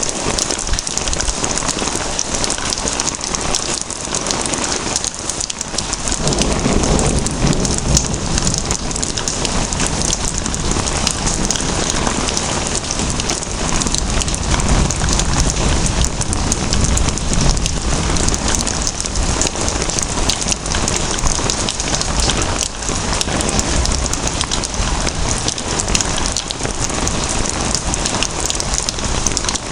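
Steady heavy rainfall, a dense hiss of drops hitting surfaces, with a low rumble swelling briefly about six seconds in.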